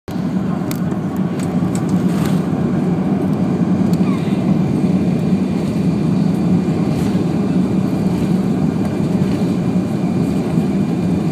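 Airbus A340-600 cabin noise during the takeoff roll: its four Rolls-Royce Trent 500 engines at takeoff thrust and the runway rumble blend into a loud, steady low drone. A few light clicks come in the first couple of seconds.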